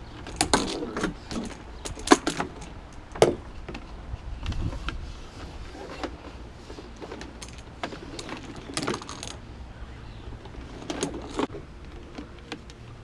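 Irregular clicks, knocks and rattles of hard objects being handled, the sharpest about two seconds in.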